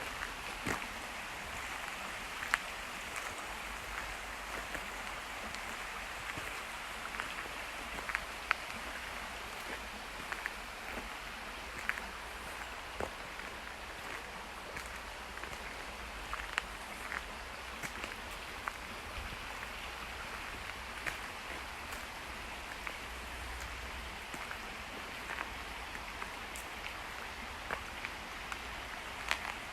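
A steady outdoor hiss with many scattered light ticks.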